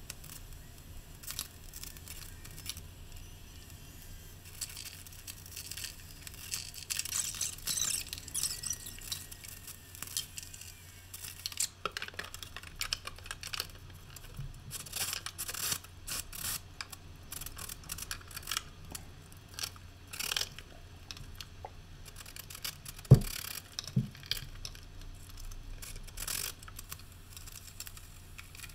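Scattered clicks, scrapes and rustles of hands-on work at a bathtub and wall framing, over a steady low hum, with one sharp knock a little over two-thirds of the way through.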